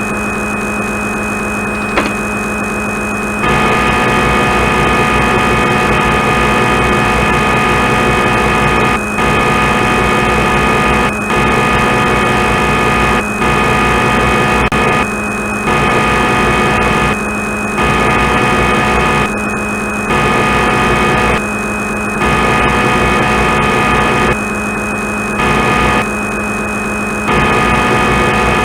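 CNC lathe simulator's machining sound: a steady humming drone made of several fixed tones, with the higher hiss of the cut dropping out for a moment again and again, about every two seconds in the second half.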